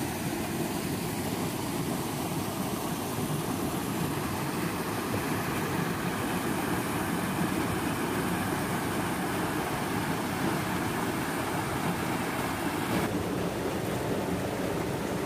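Steady rushing noise of a shallow stream running over rocks, with wind buffeting the microphone.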